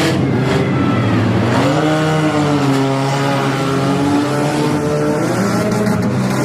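Demolition derby car engines running and revving, their pitch rising and falling over a few seconds.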